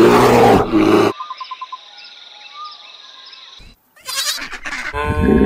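An American black bear's deep, rough growl for about a second, followed by a few seconds of faint birdsong. Near the end comes a loud bleat, from goats or sheep.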